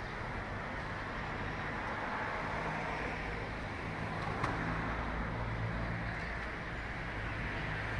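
Steady city background noise: a rush of traffic with a low engine hum that swells and fades, and one small click about four and a half seconds in.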